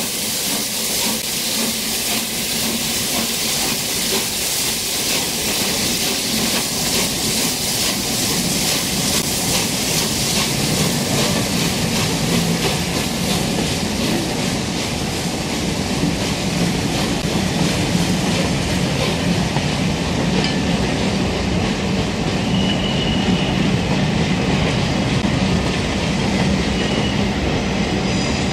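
Passenger train rolling along the station tracks, its wheels clattering steadily over the rail joints.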